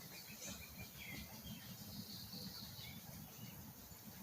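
Faint outdoor ambience: a steady low rumble with a few short, high chirps.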